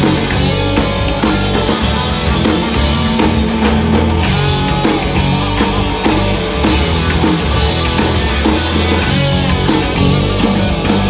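Live rock band playing: electric guitars, bass guitar and drum kit together, loud and steady.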